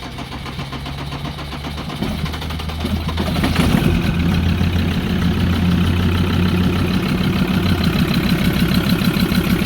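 Ford Ranger diesel engine starting on a little petrol poured into its air filter and running. It grows louder over the first few seconds, then runs steadily. The hard start is a very common symptom of failing diesel injectors.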